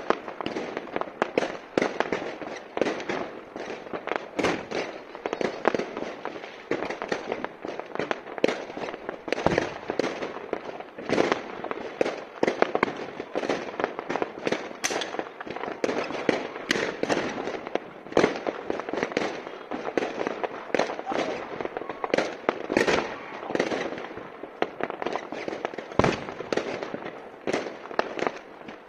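Fireworks and firecrackers going off across a town at once: a dense, unbroken run of bangs and crackles, with some louder bangs standing out.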